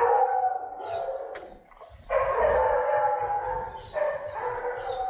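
A dog howling: three long drawn-out cries, one after another.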